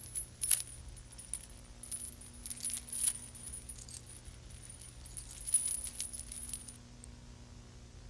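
Faint scattered crackles and clicks with a high hiss over a steady low hum. The crackling and hiss die away about seven seconds in, leaving only the hum.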